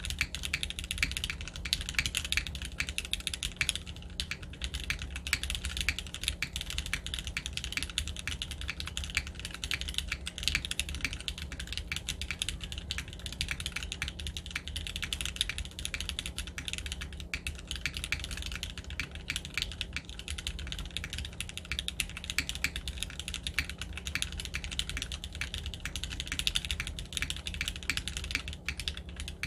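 Continuous fast typing on a TYP60SL custom mechanical keyboard with lubed Gateron X switches on a carbon-fibre plate and GMK Classic Beige keycaps. It is a dense stream of keystrokes that begins abruptly and has a plasticky sound.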